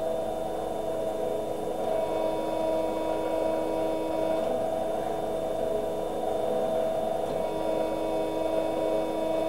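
Hydraulic power unit's pump running with a steady whine made of several held tones; the tone changes about four and a half seconds in and again about three seconds later.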